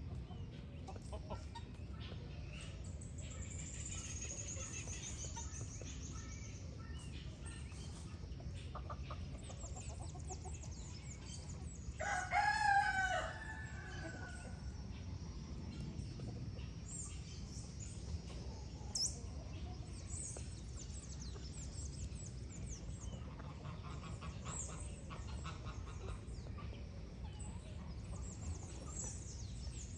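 Farmyard chickens: a rooster crows once, loudly, about twelve seconds in, while hens cluck, over a steady low background hum. Small birds chirp and trill throughout.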